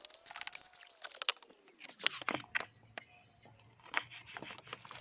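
Irregular close crunching and clicking, with a faint tone that rises and falls in the first second and a half.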